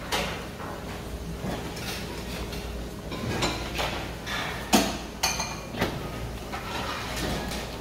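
Breakfast buffet room ambience: scattered clinks and knocks of dishes and serving utensils over a steady low hum, the loudest clink a little under five seconds in.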